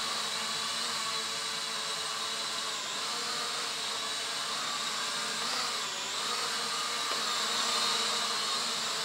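Small toy camera quadcopter hovering, its four motors and propellers giving a steady whine made of several stacked tones over a hiss, drifting slightly in pitch as it is flown around.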